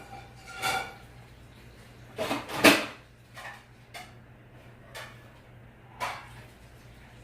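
First-generation Hampton Bay Southwind ceiling fan motor running with a steady low hum, while several sharp knocks and clatters sound over it, the loudest a little under three seconds in, then three short clicks about a second apart.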